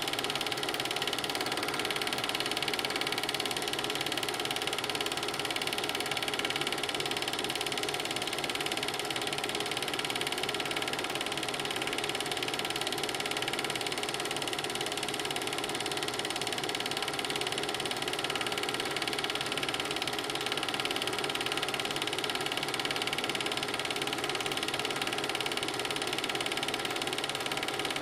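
Film projector running steadily: an even mechanical whirr and fast rattle of the film-advance mechanism, unchanging throughout.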